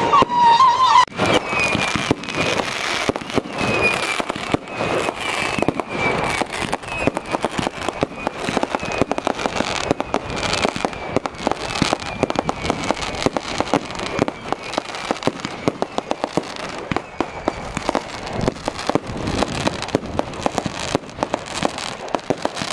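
Fireworks display going off: a dense, irregular run of bangs and crackling. A thin high tone slowly falls through the first several seconds.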